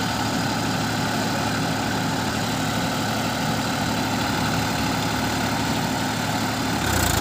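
Massey Ferguson 241 tractor's three-cylinder diesel engine running steadily under load while the tractor is bogged in deep mud. The sound changes abruptly just before the end.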